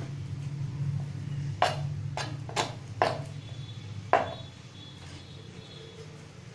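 Knife blade knocking on a plastic chopping board while slicing a block of paneer: five sharp knocks in the first four seconds or so, over a steady low hum.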